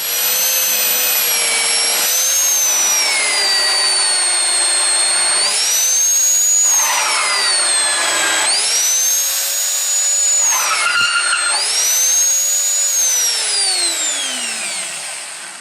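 Electric drill spinning a countersink bit to open up bolt holes in steel. Its motor whine sags in pitch about three times as the bit bites, with bursts of chattering cutting noise, then winds down with a falling pitch near the end.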